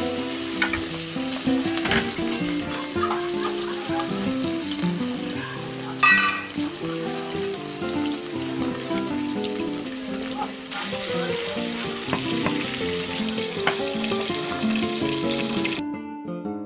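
Oil sizzling in a wok over a wood fire, a steady hiss that cuts out near the end, under background instrumental music with a melody.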